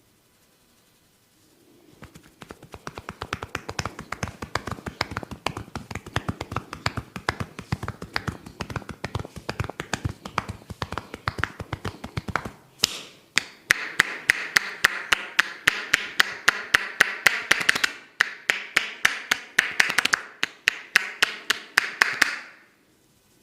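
A barber's hands tapping rapidly and rhythmically on a person's head in a massage, several quick taps a second. It starts a couple of seconds in, breaks off briefly about halfway, then goes on louder and sharper before stopping near the end.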